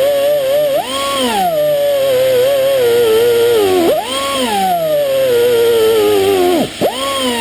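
Pneumatic air tool spinning a steel wire brush against an engine valve to scrub off carbon: a loud whine whose pitch sinks slowly as the brush is pressed on and leaps back up when it is eased off, three times, with a brief deep dip just before the last leap.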